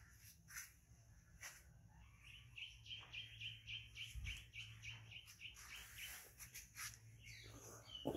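A bird's rapid trill of repeated high chirps, about seven a second for some three seconds in the middle, over faint clicks and scuffs.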